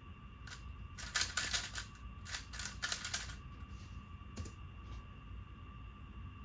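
3x3 speedcube being turned quickly by hand: two runs of fast plastic clicking turns, each lasting about a second, then a couple of single knocks as it is put down.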